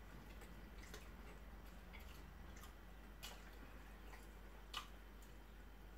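Near silence with a few faint clicks and smacks of eating by hand: chewing, lip smacks and fingers picking at rice and chicken. The two plainest clicks come about three seconds and nearly five seconds in.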